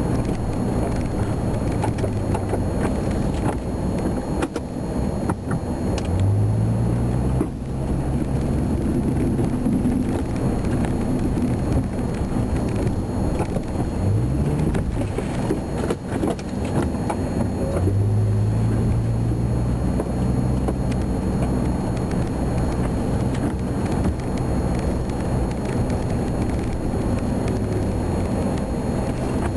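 Ford F-350's V10 petrol engine running under load while plowing, heard from inside the cab. It revs up three times: in the first third, around the middle, and just after it.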